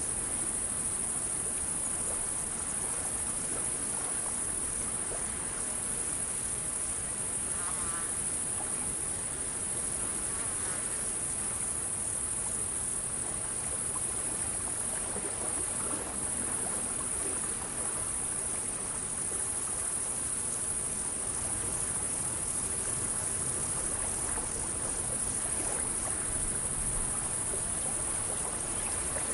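Crickets trilling in a steady, high, continuous chorus, over a soft wash of lapping water.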